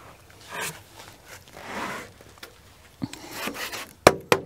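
A freshly sawn log-face slab being shifted and slid over the sawn log on the sawmill bed: wood scraping and rubbing on wood, then a few sharp wooden knocks near the end as it is handled.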